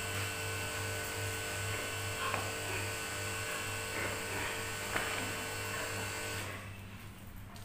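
Electric pressure washer running steadily, a constant motor-and-pump hum with spray hiss, cutting off near the end.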